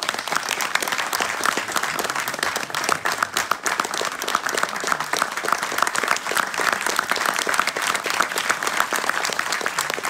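An audience clapping in sustained applause, starting abruptly and continuing steadily throughout.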